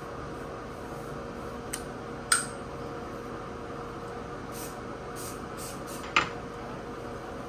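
Kitchenware being handled: a small tick, then two sharp clinks about two and six seconds in, over a steady faint hum.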